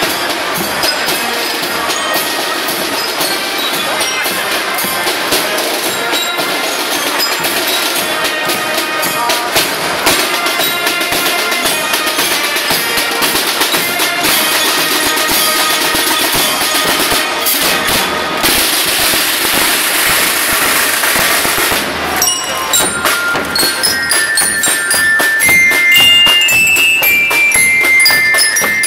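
Marching band playing as it passes: snare drums keep up a steady march beat, and in the last few seconds saxophones and other brass play a clear melody over the drums.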